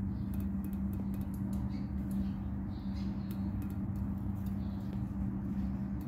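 A steady low motor hum with one constant tone, with faint light ticks scattered through it.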